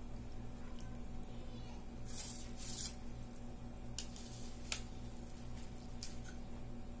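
Pot of chicken gravy and water boiling on the stove, over a steady low hum, with short hissing splashes about two to three seconds in and a few sharp clicks after.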